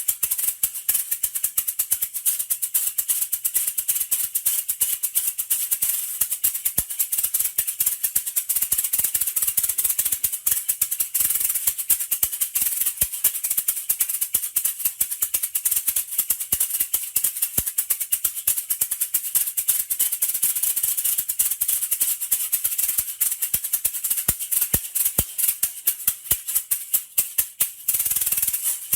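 Maracas shaken fast and without a break, a dense, high rattle of beads, with one short pause near the end.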